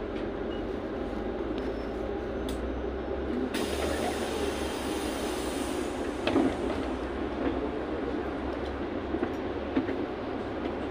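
Cabin noise inside a LiAZ 6213.65 city bus: a steady low rumble from the engine and running gear. A hiss comes in about three and a half seconds in and fades about six seconds in, followed by a knock and a few light clicks.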